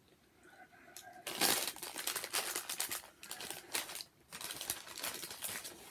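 White paper takeaway bag rustling and crinkling as a hand rummages in it for chips, starting about a second in and going on in irregular bursts.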